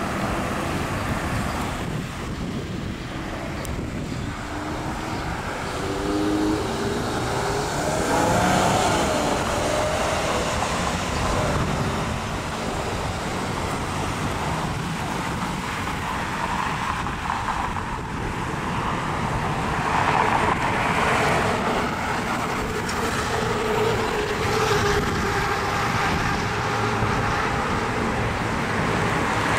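Road traffic at an intersection: cars passing by with tyre and engine noise. An engine's pitch rises and wavers about a quarter of the way in, and more vehicles pass with louder engine hum in the second half.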